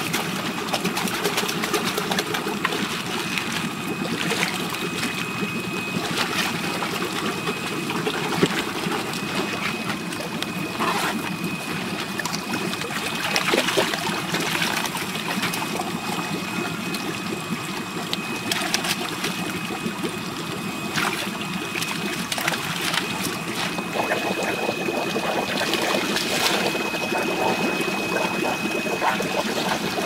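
Shallow tank water splashing and sloshing as koi thrash and are scooped up in plastic bags, with many short splashes over a steady trickle of water running into the tank.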